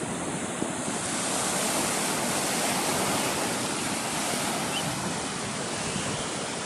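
Sea surf: waves washing onto the shore in a steady rushing wash that swells gently about halfway through.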